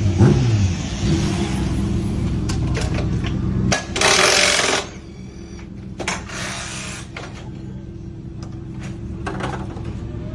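A racing superbike's engine falls in pitch as it passes and fades away about half a second in. A steady low hum then stays underneath, with a sharp burst of hiss about four seconds in, a second one about six seconds in, and scattered clicks.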